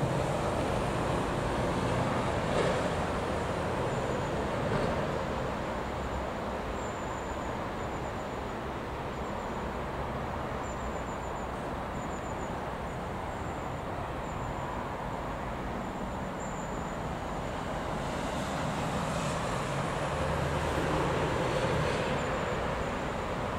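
GB Railfreight Class 66 diesel-electric locomotive running steadily as it hauls a stone train of hopper wagons toward the listener, its two-stroke V12 engine note mixed with wheel-and-rail rumble. The sound grows a little louder near the end as the locomotive draws closer.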